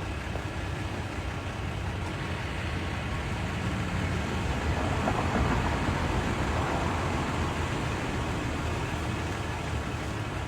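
Steady vehicle engine and road noise with a low rumble, growing somewhat louder about halfway through and easing off again.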